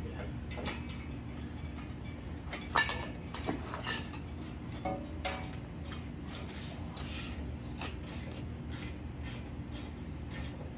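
Metal hand tools and parts clinking and tapping during hub work on a truck's front wheel: a handful of sharp, irregular clinks, the loudest about three seconds in, over a steady low hum.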